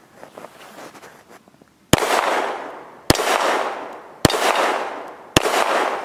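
Four shots from a 9mm Glock pistol, a little over a second apart, each followed by a long echo dying away.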